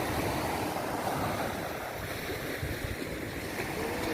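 Steady shoreline noise of surf and wind, with wind buffeting the microphone in low rumbles.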